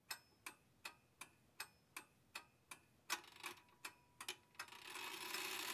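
Clock ticking, faint, at nearly three ticks a second; the ticking stops about four and a half seconds in as a steady hiss swells up.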